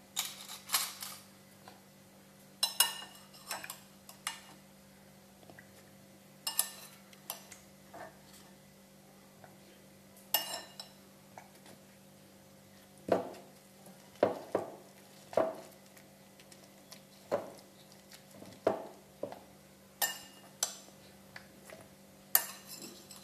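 A metal spoon and a stone pestle clinking and knocking against a stone mortar (cobek) and a plate, while eggplant is mashed into chili sambal. The clinks and knocks come singly and unevenly, some sharp and bright, others duller, over a faint steady hum.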